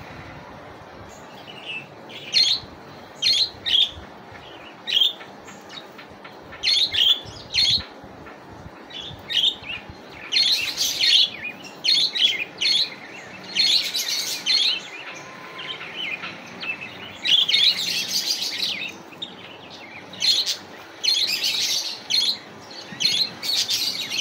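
Budgerigars chirping: short, scattered high chirps at first, then longer bursts of rapid chattering warble from about ten seconds in.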